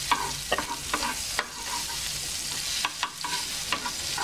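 Butter and a little refined oil sizzling in a kadai as they melt, stirred with a wooden spatula that knocks and scrapes against the pan several times a second.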